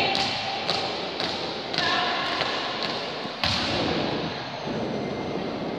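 Marching footsteps of a school flag escort stamping in step on a tiled gym floor: sharp thuds about every half second, with a louder stamp about three and a half seconds in, echoing in the large hall.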